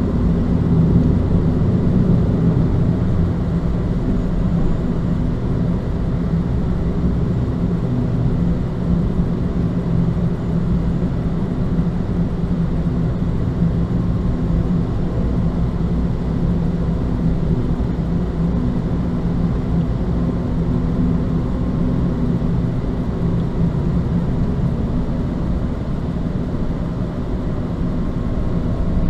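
A car's engine and tyres rumbling steadily, heard from inside the cabin while it drives along at road speed.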